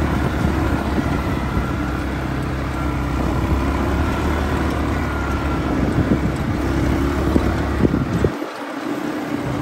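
ATV engines running steadily as the quad bikes ride along, with wind buffeting the microphone. The low wind rumble drops away briefly near the end.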